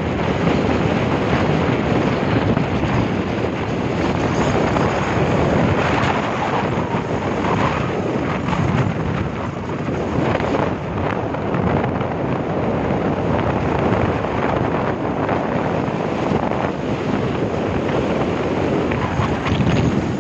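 Wind rushing over the microphone of a vehicle travelling at speed on a highway, with a steady rush of road and engine noise underneath.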